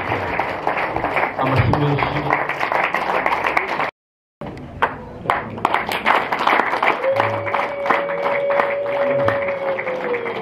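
A crowd clapping and applauding in dense, irregular claps, with a sudden half-second dropout about four seconds in. From about seven seconds in, a long held tone sounds over the clapping and slides slowly down near the end.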